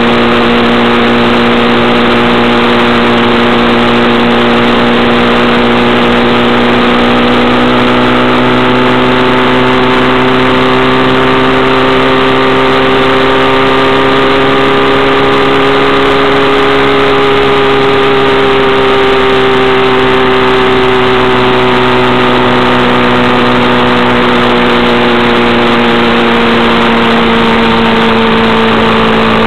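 Engine of a moving road vehicle running steadily at cruising speed. Its pitch rises slightly and falls back around the middle, over a constant rush of wind and road noise.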